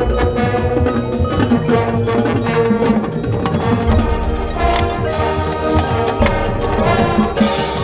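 High school marching band playing its field show: sustained band chords over the front ensemble's mallet percussion and drum strikes.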